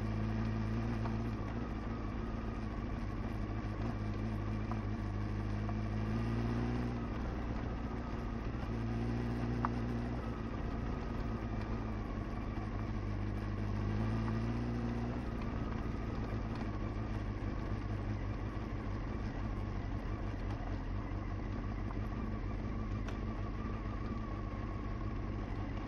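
Honda CBR motorcycle engine running at low, steady revs under a constant rush of noise, heard from the rider's seat. Its note climbs briefly three times in the first half, then settles into a steady low rumble.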